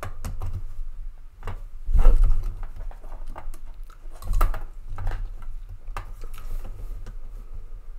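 Plastic LEGO pieces clicking and rattling as a hand-held brick model's parts are rotated, slid and folded. Irregular sharp clicks come with dull thumps, the strongest about two seconds in and again a little after four seconds.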